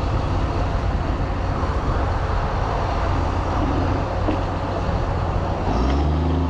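Grapple skidder's diesel engine running with a steady low rumble; about six seconds in, a clear engine note comes up and its pitch shifts.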